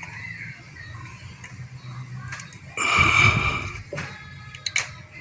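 Scattered small clicks and handling noise as an electrical connector plug is pushed onto an engine sensor. About three seconds in comes a loud, strained, wheezing breath lasting about a second.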